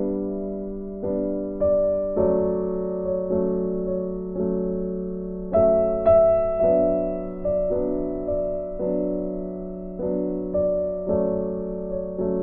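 Background piano music: slow, gentle notes, each struck and left to fade.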